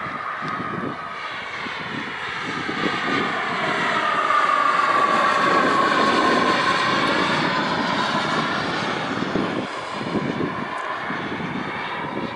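Skymaster T-38 Talon RC model jet in flight, a steady jet whine that grows louder toward the middle as it passes, dips a little in pitch, then fades.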